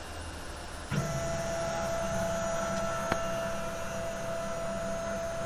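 CNC router's stepper motors whining at a steady pitch as the gantry traverses, starting abruptly about a second in, with one sharp click partway through, over a low steady hum.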